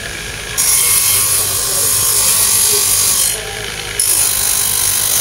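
Bench buffer running with its yellow buffing wheel, a steel blade held against it: a steady motor hum under a loud rubbing hiss. The hiss falls away for about half a second near the start and again about three and a half seconds in, as the blade comes off the wheel.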